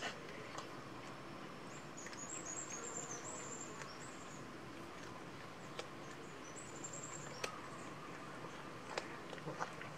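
Cats eating rice and fish from a plate: quiet chewing with a few sharp clicks scattered through, the loudest about seven and a half and nine seconds in. High thin chirping comes in the background about two seconds in and again near seven seconds.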